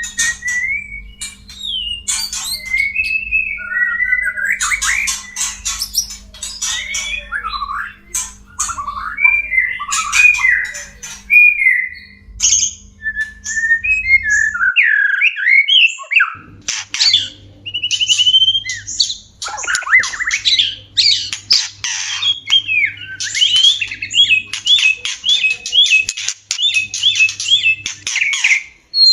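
White-rumped shama (murai batu) mating calls: varied whistled glides mixed with harsh chattering notes, and a run of quick repeated notes near the end. A low steady hum under the recording drops out about halfway, and a different hum comes in shortly after.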